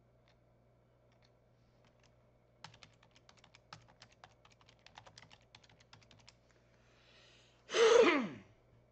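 Typing on a computer keyboard: a quick, irregular run of key clicks lasting about four seconds. Near the end comes a short, loud voiced breath from a person, falling in pitch.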